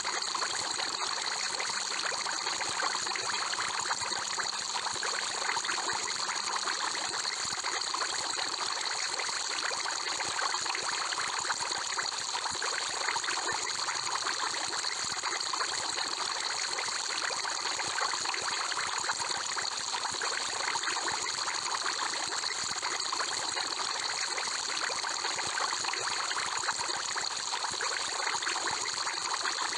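Steady aquarium water sound: water trickling and bubbling continuously, with a fine crackle of small bubbles and no change in level.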